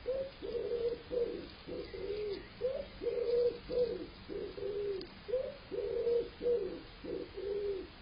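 A pigeon cooing over and over, a steady run of low, soft coos, some ending on a short upward lift, a little under two a second.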